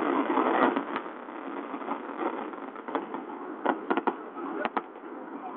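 Tail of a fireworks display: scattered sharp cracks and pops, some in quick clusters of two or three, over a steady crowd murmur.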